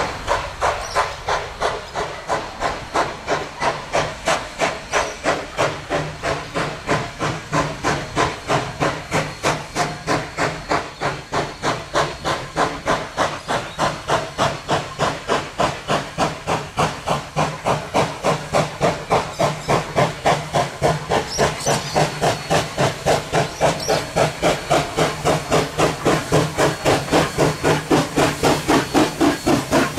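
Queensland Rail C17 class 4-8-0 steam locomotive C17 974 working a train, its exhaust chuffing steadily at about three beats a second with a hiss of steam, growing louder as it approaches.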